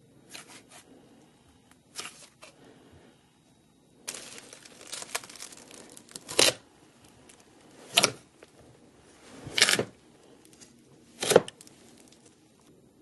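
Glossy slime being squeezed and pressed by hand: wet squelching and crackling, with four sharp, loud pops about a second and a half apart in the second half.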